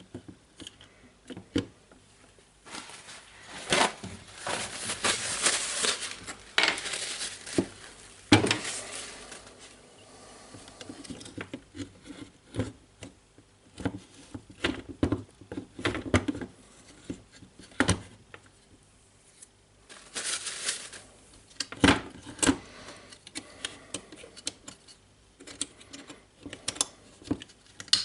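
Small metal and plastic jigsaw parts being handled and fitted into the housing: irregular clicks, taps and knocks, with longer stretches of rubbing and scraping.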